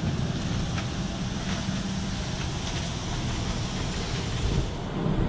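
Airliner cabin ambience during boarding: the steady rush of the cabin ventilation air over a low hum, with a few faint clicks and knocks. The hiss drops away near the end.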